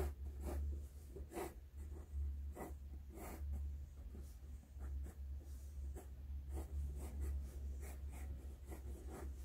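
Pencil drawing short, irregular strokes on textured watercolour paper, each stroke a brief scratch. A steady low hum runs underneath.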